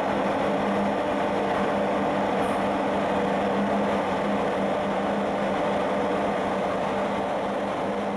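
A tanker's engines and onboard machinery running with a steady drone and a constant low hum underneath.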